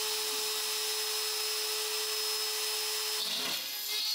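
Trim router serving as a desktop CNC's spindle, running at high speed with a steady whine and hiss as its bit mills a pocket into an aluminium plate. The sound shifts briefly about three seconds in.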